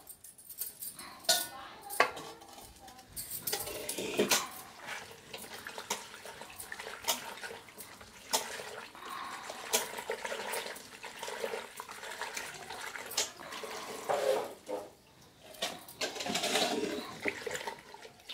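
Water splashing and sloshing as hands wash bathua leaves in a stainless steel pot. There are a few sharp metal clanks of a steel bowl against the pot in the first few seconds, and the splashing comes in louder surges near the end.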